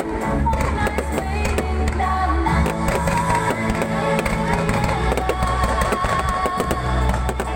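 Music with a steady bass line and a wavering melody plays loudly, with sharp fireworks pops and crackles scattered through it.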